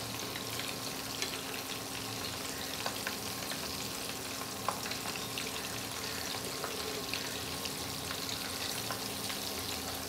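Coated chicken drumsticks sizzling steadily in hot oil in a frying pan. A fork and spoon scrape and tap lightly as the pieces are turned over to fry the other side. A faint steady hum runs underneath.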